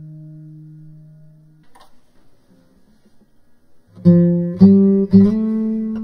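Guitar music: a held low note fades out, then after a short pause three plucked notes sound about half a second apart, each a little higher, and the last one rings on.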